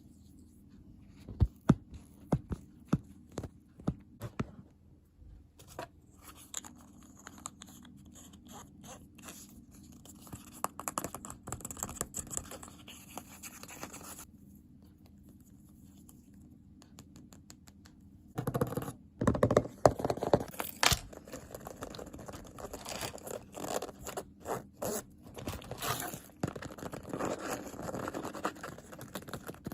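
ASMR tapping and scratching: a run of sharp separate taps near the start, then fingernail-style scratching, a pause of a few seconds, and then denser, louder scratching through the second half.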